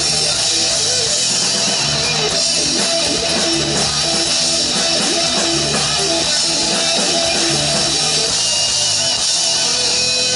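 Rock music with guitars and a drum kit playing steadily.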